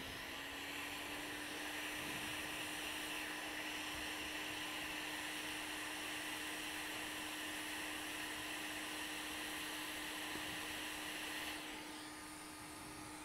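Hot-air rework station blowing a steady hiss with a low steady hum while it heats a MOSFET off a laptop motherboard to desolder it. The airflow stops about a second and a half before the end.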